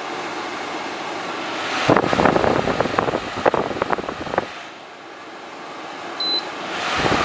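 Electrolux FFAD7033R1 dehumidifier's fan blowing air out through its exhaust grille, the airflow buffeting the microphone in gusts that swell and fade. A single short beep from the control panel about six seconds in, as the fan-speed button is pressed.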